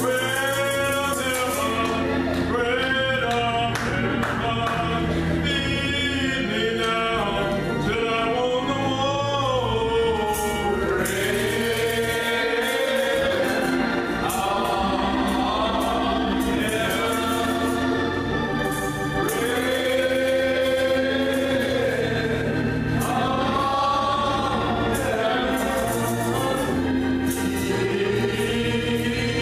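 Gospel choir singing a song in church over sustained low accompaniment notes.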